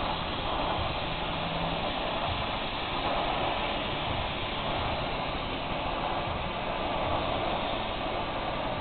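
TIG welding arc hissing steadily during a final pass on a tube, with a faint low hum that stops about two seconds in.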